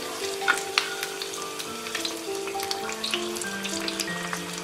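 Corn and potato kebab rolls deep-frying in hot oil on a high flame: a steady sizzle with scattered sharp crackles. A soft background music melody plays along.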